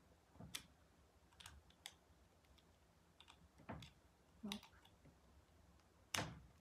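Light plastic clicks and taps of a USB plug being fitted into a small white plug-in power adapter. There are a handful of scattered clicks, and the loudest comes near the end.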